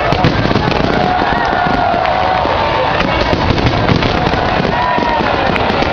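Fireworks going off without pause, many bangs and crackles overlapping into a constant din, with some gliding tones heard over it.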